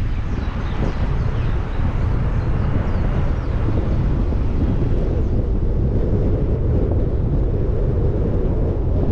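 Car driving and picking up speed from a junction: a steady low rumble of road and wind noise, with wind buffeting the microphone.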